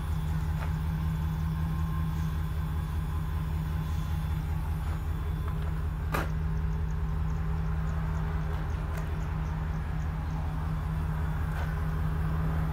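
Truck engine idling: a steady low rumble with an even, rapid pulse. A single sharp knock about six seconds in.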